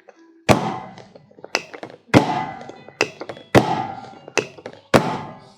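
A run of seven heavy thuds in an even rhythm, about one every 0.7 s, alternating loud and softer, each ringing out briefly after the hit.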